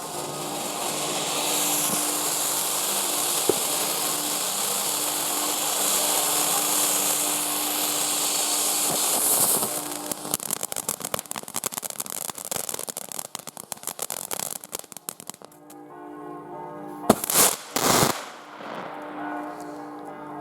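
WECO Yang firework fountain burning with a steady hiss of spraying sparks for about nine seconds, then turning to dense crackling for several seconds. Near the end come two loud bangs close together. Music plays underneath.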